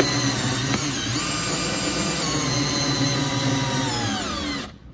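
Cordless drill motor running steadily on low torque, winding fiber cutting line through the windshield's urethane bead. Its pitch sinks over the last second, and it stops sharply near the end.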